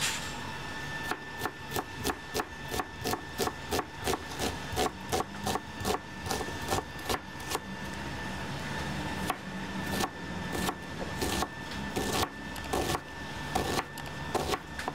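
Chef's knife chopping an onion on a cutting board: quick, even knife strikes, about three a second, then a short lull about eight seconds in before a sparser run of cuts, over a faint steady hum.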